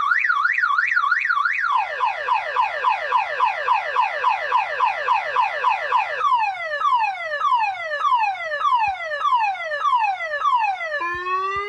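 Car alarm siren stepping through its tone cycle. It begins with an up-and-down warble, switches to rapid falling chirps at about four a second, then to slower falling sweeps at about two a second, and near the end changes to a steady rising tone.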